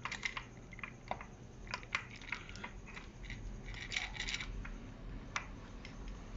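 Steel timing chains and sprocket of a Dodge Dakota 3.7 V6 clinking as they are worked by hand onto the gear: irregular light metallic clicks, with a short cluster of them about four seconds in.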